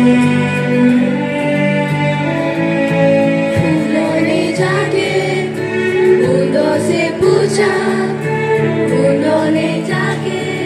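A school choir of children singing a song about nature, with instrumental accompaniment. Held chords come first, and a sung melody comes in about four seconds in.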